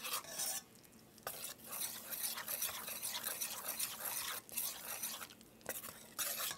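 Metal spoon stirring and scraping in a stainless steel pan of foaming brown butter, in uneven strokes with short pauses. Under it is a soft sizzle from butter whose water has cooked off and which is now browning.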